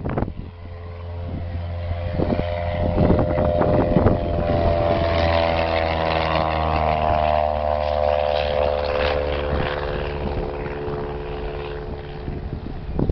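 Cessna 172's single propeller engine at full takeoff power, passing close by. Its drone grows louder and slides down in pitch as it goes past about halfway through, then fades as the plane climbs away.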